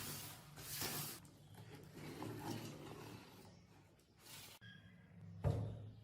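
Handling noises: a few short scraping sounds and a sharp knock about five and a half seconds in.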